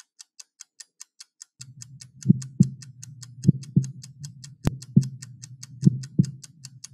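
Clock-like ticking sound effect, about five quick ticks a second. From about a second and a half in, a low hum joins it, with paired low thumps repeating every second or so. A single sharp click comes near the middle.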